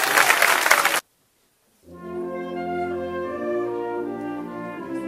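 Audience applause that cuts off abruptly about a second in. After a brief silence, a wind band begins with brass playing held, layered chords.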